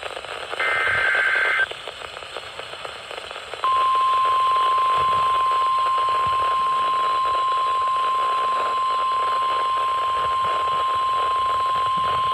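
NOAA Weather Radio alert sequence over receiver static: the last of the SAME header data bursts, a one-second two-tone warble, then a couple of seconds of hiss, then the steady single-pitch warning alarm tone, held for about nine seconds. The tone announces a new warning, here a severe thunderstorm warning.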